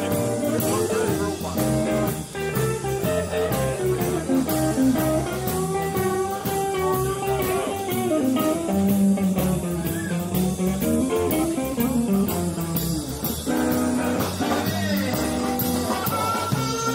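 Background blues music: a guitar playing lead lines with bent, sliding notes over a steady beat.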